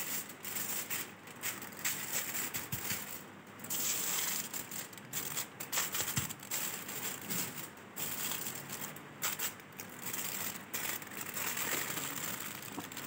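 Aluminium foil crinkling and rustling in an irregular run of crackles as it is folded over and pressed down by hand to wrap fish.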